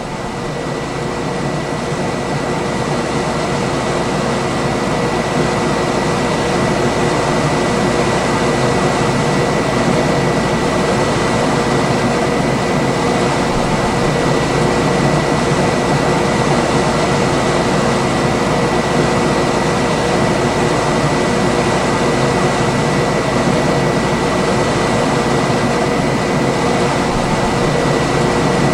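Room air conditioner running: a steady fan rush with a faint constant hum and a thin high whine. It fades in over the first few seconds, then holds level.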